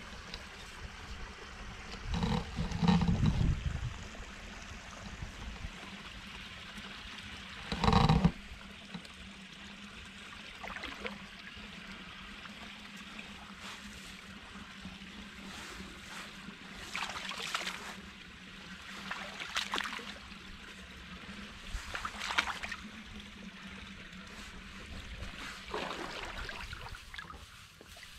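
Rubber boots wading through shallow water among reeds and grass, with water sloshing and trickling and a brief splash or rustle every few seconds. Two louder thumps come in the first eight seconds.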